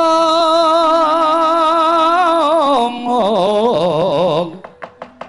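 Sung Javanese verse (tembang) in a wayang kulit performance: a voice holds a long high note with wide vibrato, then slides down and wavers over lower notes. It fades about four and a half seconds in, leaving a few light taps.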